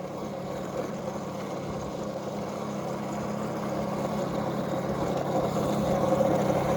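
Small motorbike engine running at a steady speed, slowly growing louder.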